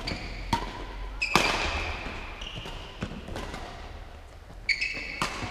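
Badminton rackets striking the shuttlecock in a rally, sharp echoing cracks a second or so apart, with short high squeaks of court shoes on the sports-hall floor, the loudest about a second in and again near the end.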